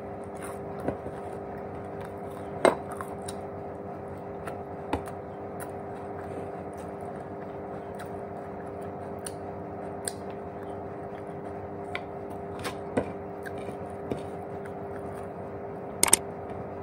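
Eating sounds: sparse short clicks and crunches of crispy fried fish being eaten, with light taps of dishes or utensils, over a steady background hum.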